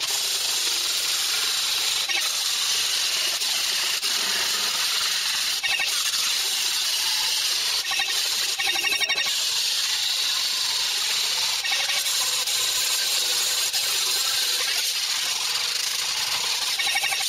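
Handheld angle grinder grinding down weld seams on a steel car floor pan: a steady, high grinding hiss.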